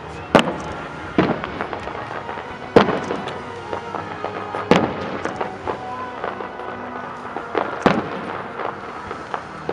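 Fireworks display: aerial shells bursting with five sharp bangs at irregular intervals, the loudest nearly three seconds in, with lighter pops and crackling between them.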